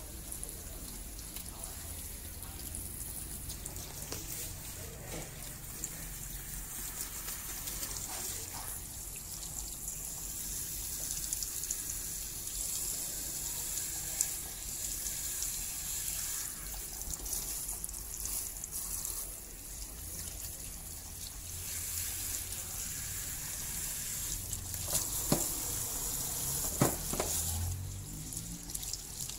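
Water spraying from a handheld shower head at a salon shampoo basin as a man's hair is rinsed and rubbed by hand, with a couple of short knocks near the end.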